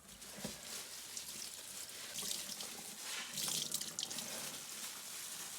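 Tap water running into a sink and splashing over a tie-dyed item as the excess dye is rinsed out, louder for a moment about three seconds in.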